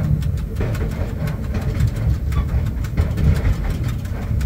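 Cab noise of a ChS4 electric locomotive: a steady low rumble with many small, irregular clicks and knocks over it.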